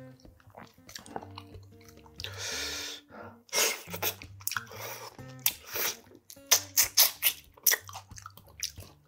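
Close-miked mukbang eating sounds: a bite of spicy braised monkfish (agujjim) slurped in a little after two seconds, then wet chewing with many sharp mouth smacks through the second half. Soft background music runs under it.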